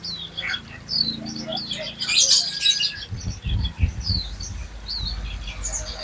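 Several caged songbirds chirping, with short, high, downward-sweeping chirps overlapping and a denser flurry of calls about two seconds in. A few low thumps come a little past the middle.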